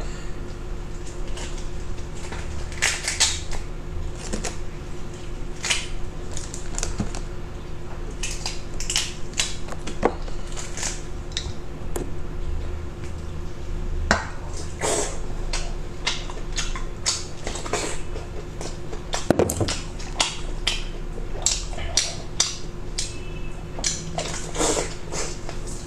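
A man eating: irregular wet mouth sounds and crunches, with utensils clicking against dishes, over a steady low hum.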